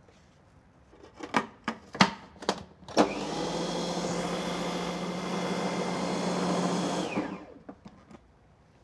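Food processor motor running steadily for about four seconds, blitzing cake batter smooth, then stopping. Before it starts, a few sharp clicks and knocks on the plastic bowl, with a few lighter clicks after it stops.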